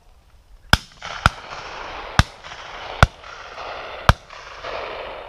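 Five shotgun shots from the line of guns, irregularly spaced over about three and a half seconds, each followed by a long rolling echo.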